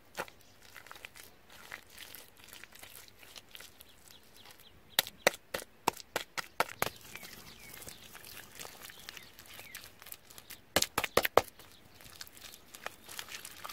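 Bare hands slapping and patting wet mud onto a mound, with soft scraping and smearing between. There are two runs of quick sharp slaps, one about five seconds in and another about eleven seconds in.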